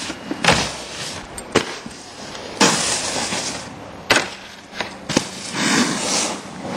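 Snowboard scraping and hissing over packed snow and sliding on a metal rail and a box, with several sharp knocks and clacks as the board hits and leaves the features and lands.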